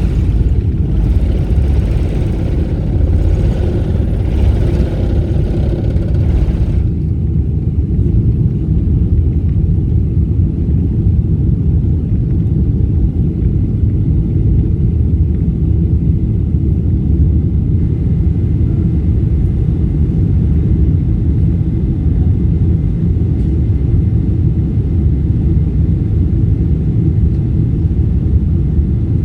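Steady low rumble of aircraft cabin noise in flight. A fainter, higher layer on top cuts off abruptly about seven seconds in.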